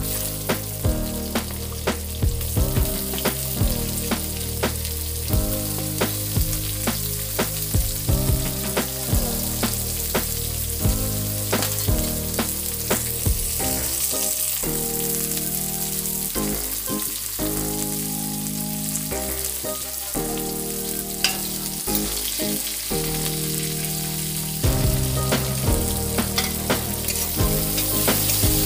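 Chopped onions and whole spices sizzling as they fry in hot oil in a pan, stirred now and then with a spatula that clicks against the pan.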